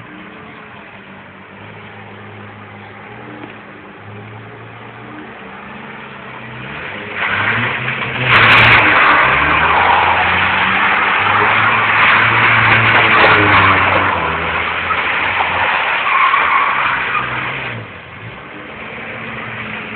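Mazda RX-7's rotary engine revving up and down as the car drifts. About seven seconds in, loud tyre skidding joins it and lasts about ten seconds, with a sharp click near its start, then dies back to the engine alone.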